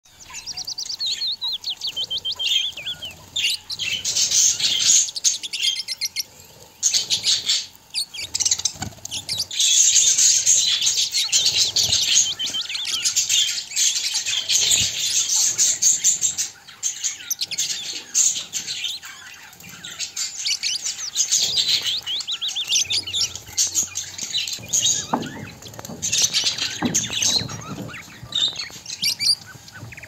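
Budgerigars chirping and warbling in a rapid, busy chatter of high chirps and trills, with a few short lulls.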